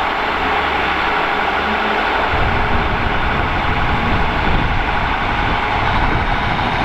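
Class 150 Sprinter diesel multiple unit's underfloor Cummins diesel engines running as the train pulls out and draws nearer. A deeper engine sound comes in about two seconds in and holds steady.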